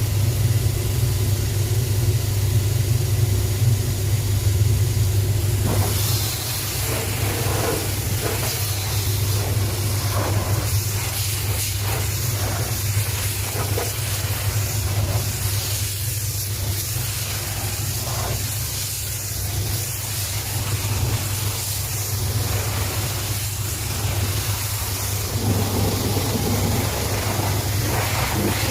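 Hot steam cleaner running with a steady low hum. From about six seconds in, its lance sprays with a continuous hiss.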